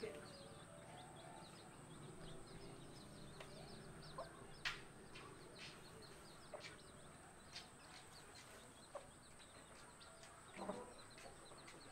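Faint chickens foraging: soft clucking and runs of short, high chick peeps, with a few sharp clicks scattered through.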